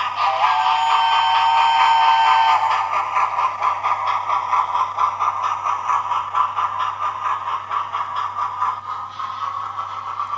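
Hornby TTS sound decoder in a model P2 2-8-2 steam locomotive sounding a two-note whistle for about two seconds, over a steady rhythm of recorded steam chuffs and the hum of the running model.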